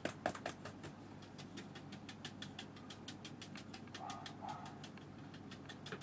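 A splayed flat watercolour brush dabbing on the paper to stipple in foliage, making faint, quick taps several times a second.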